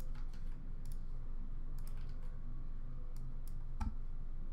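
Scattered clicks of a computer mouse and keyboard as a list is selected, copied and pasted, over a steady low hum. A louder thump comes a little under four seconds in.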